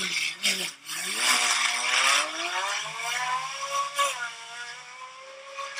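Supercar engine blipped briefly, then accelerating hard with its pitch climbing. About four seconds in it drops for a gear change, then climbs again as the sound fades away.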